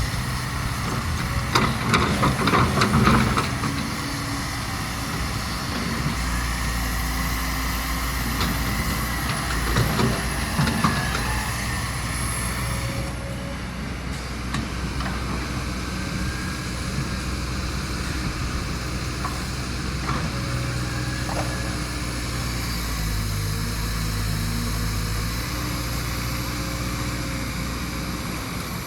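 Kobelco SK200 hydraulic excavator's diesel engine running under load, its note shifting as it works. A burst of clattering knocks comes about two to three seconds in and another briefly around ten seconds, with a thin whine that rises and falls.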